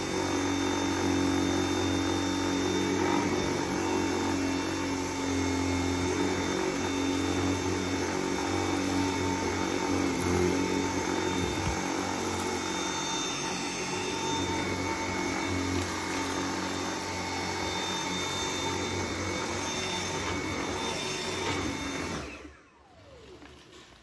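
Dyson V7 cordless stick vacuum running steadily with its motorized brush head on carpet. Near the end it is switched off and the motor winds down in a falling whine.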